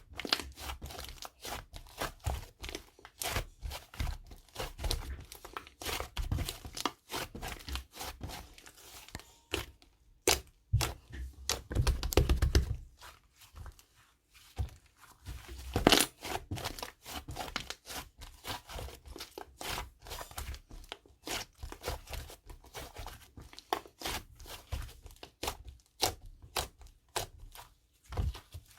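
Green slime being squeezed, stretched and folded by hand: a dense run of sticky clicks, crackles and tearing pops, with a louder squelch about twelve seconds in and a sharp pop a few seconds later.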